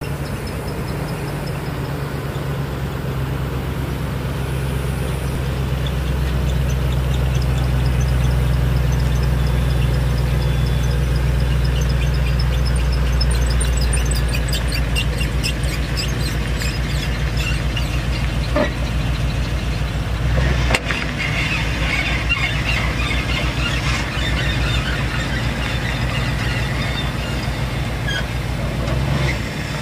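The 1997 Ford F350's 5.8-litre V8 gas engine idling steadily, with a rapid high-pitched chirping squeal for several seconds midway and a sharp click about two-thirds through.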